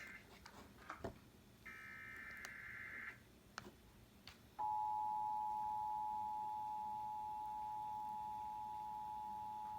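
Emergency Alert System weekly test on Cox cable: a warbling digital header burst lasting about a second and a half, then, a second and a half later, the EAS two-tone attention signal comes on and holds as a steady dual tone, fading slightly.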